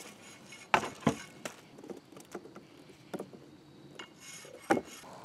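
Handling sounds of a corded jigsaw and its cardboard box on a plywood tabletop: a handful of sharp knocks with light rubbing between them, the loudest just under a second in and near the end.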